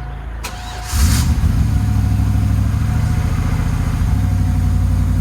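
LS6 5.7-litre V8 engine firing up about a second in after a click, then running at a steady idle, the fuel pump having primed after the sending unit was replaced.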